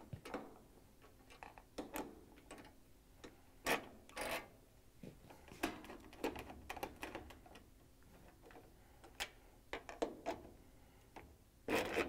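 A 1/4-inch hand nut driver backing screws out of a washer's sheet-metal access panel: faint, irregular clicks and short scrapes as the screws turn in the metal.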